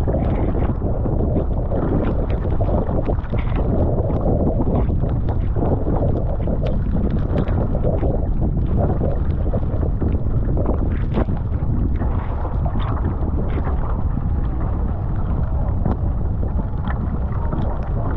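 Wind buffeting the microphone over water rushing and splashing along a Fenn Elite S surfski's hull as it is paddled through chop, with scattered sharp splashes from the paddle strokes and spray.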